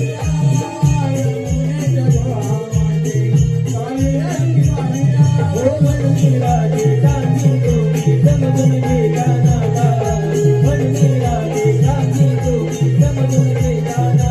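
Naman folk music without singing: a drum beating a quick, even rhythm, with jingling small cymbals or bells keeping time and a melody line winding above.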